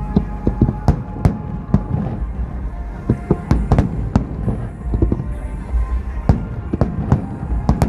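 Fireworks display: many sharp bangs of fireworks bursting in quick, irregular succession over a deep rumble, with music playing underneath.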